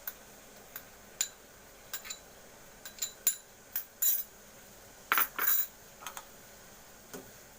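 A spoon clinking and scraping against a bowl and pot while ground ginger and kencur paste is scraped into boiling water: a scatter of short sharp clicks, with a few longer scrapes from about four seconds in.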